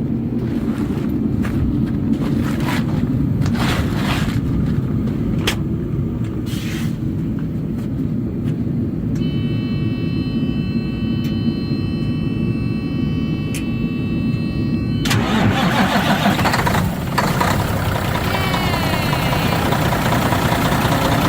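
Freightliner semi truck's diesel engine starting on its new battery cable without a jump: a steady buzzing tone sounds for about six seconds and cuts off as the engine catches, about fifteen seconds in, and runs louder afterwards. A low engine rumble is there throughout.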